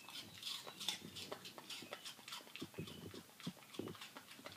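A Labradoodle crunching and chewing a piece of raw apple: a quick, irregular run of crisp crunches, loudest about a second in.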